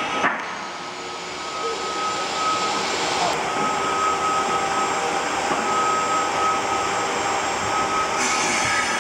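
Jobsite table saw running, its motor giving a steady whine; a sharp knock just after the start.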